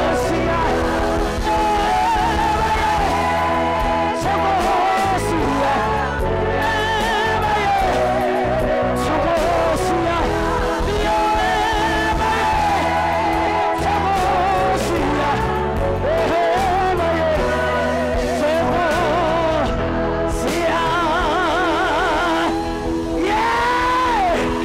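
Live gospel worship music: a church worship team of several singers at microphones sings a Zulu praise chorus over a band, at a steady, loud level.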